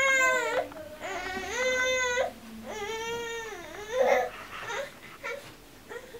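Baby vocalizing in a string of high-pitched, drawn-out wails, each about a second long, with short breaks and a brief squeak between them.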